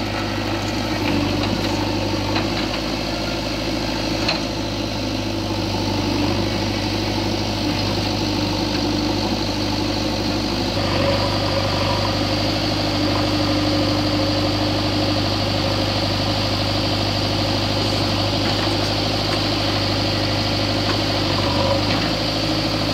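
Diesel engines of a JCB 3DX backhoe loader and a New Holland 4010 tractor running steadily at about idle, a deep continuous drone. The tone shifts slightly about eleven seconds in.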